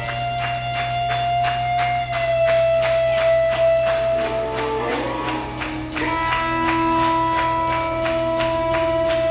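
Live rock band playing an instrumental passage. Electric guitar holds long sustained notes, changing pitch about halfway, over bass guitar and a steady quick beat of drums and cymbals.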